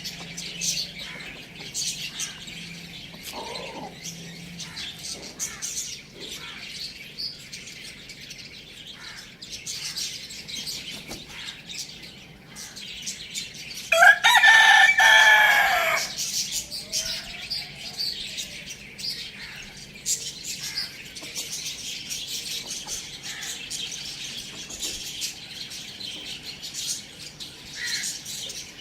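A rooster crows once about halfway through, a loud call about two seconds long, over steady chirping of many small birds.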